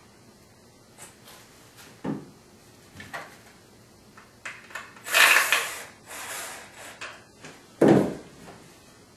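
Wooden back slats of a Bear Chair BC800 loveseat being handled: a few light knocks, a longer scrape of wood sliding on wood about five to six and a half seconds in, and a loud knock of wood on wood near the end.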